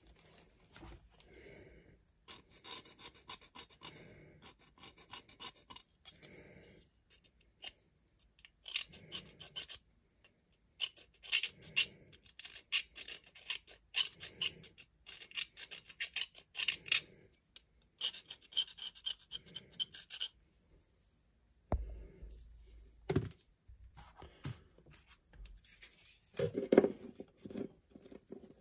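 Hand-tool scratching and rubbing on a small part, in fast uneven runs of strokes with short pauses between them. About two-thirds of the way through there is a brief dull bump and a sharp knock.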